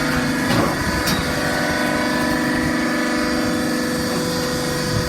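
Hydraulic baling press running: a steady hum from its electric motor and hydraulic pump, with a short knock about half a second in and a sharp click about a second in.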